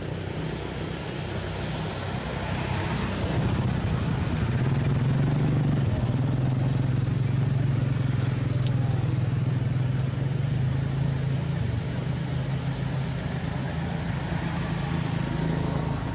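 A motor vehicle's engine running steadily nearby, a low hum that grows louder about three seconds in and eases off a little after about twelve seconds.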